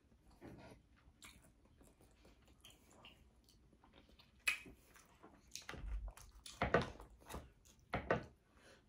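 A person chewing and eating food close to the microphone: wet mouth sounds and scattered sharp clicks, getting louder about halfway through.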